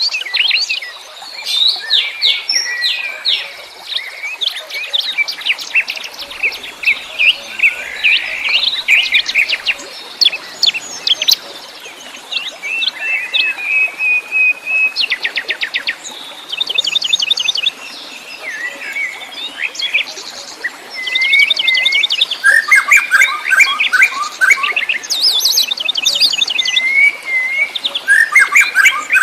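Several wild songbirds singing and chirping together: overlapping quick chirps, whistled phrases and fast rattling trills, getting busier in the second half.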